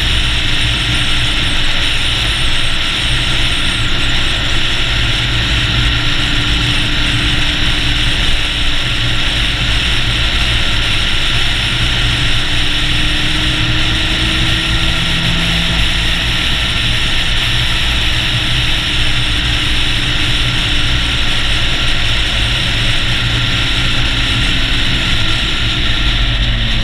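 Touring motorcycle riding steadily along an open road: a low engine drone under constant wind and road roar on a camera mounted on the bike's fairing.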